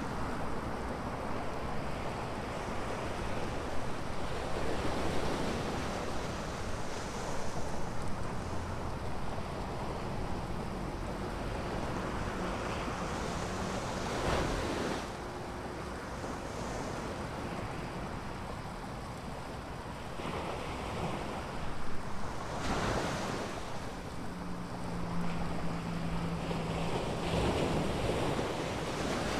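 Ocean surf breaking on a beach: a steady wash of waves with louder crashes now and then, the strongest about halfway through and again about three quarters of the way in. Wind rumbles on the microphone, and a faint low hum sounds briefly near the end.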